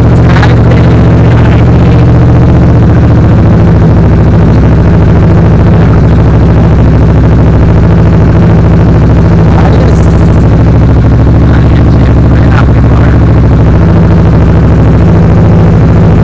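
Kawasaki Versys 650's parallel-twin engine idling steadily through an open, unmuffled exhaust pipe, very loud and even throughout.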